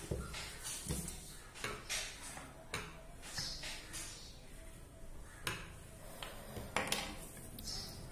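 Cut cotton blouse fabric pieces being handled and smoothed on a tabletop: cloth rustling, with scattered light clicks and taps.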